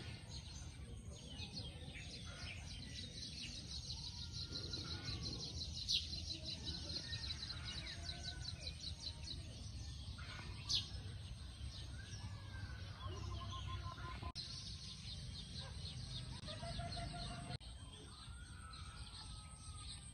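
Birds chirping and calling outdoors, over a fast pulsing high trill, a thin steady high whine and a low rumble. Two sharp clicks stand out, about a third of the way in and just past the middle.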